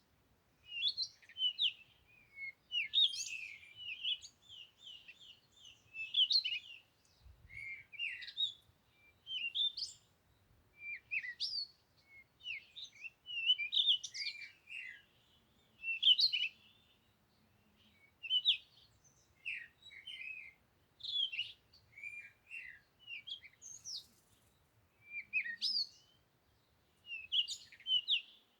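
Songbirds singing: short chirping phrases of quick slurred notes, repeated every second or two.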